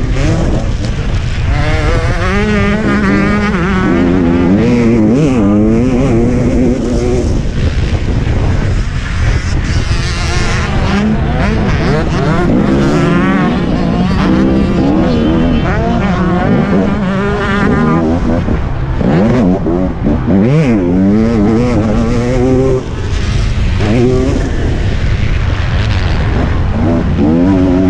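Motocross motorcycle engine heard from on board while racing, revving up and dropping back again and again as the rider accelerates, shifts and brakes through the track.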